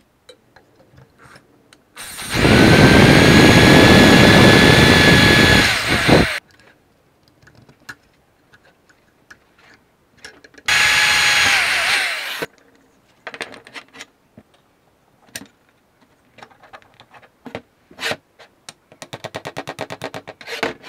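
Electric drill running at speed while boring a hole through a wooden knife-handle scale: a steady whine for about four seconds starting two seconds in, then a shorter burst of under two seconds around the middle. Small clicks of handling between, and a fast run of ticks near the end.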